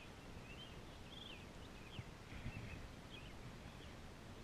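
Faint chirping of a small bird, short high notes about twice a second, over a low steady rumble of wind and water.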